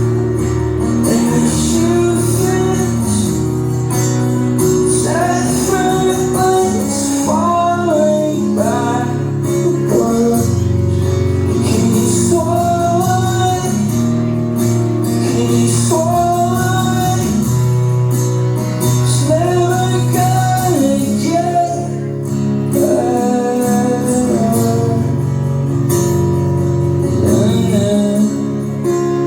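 Live band playing loudly: a sung melody over electric guitar, bass and drums, recorded on a phone in the crowd.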